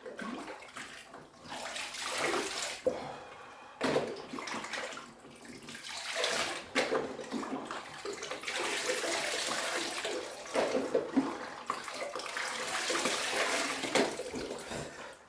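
Ice water splashing and running in a chest-freezer cold plunge, in several swells, the longest lasting about seven seconds.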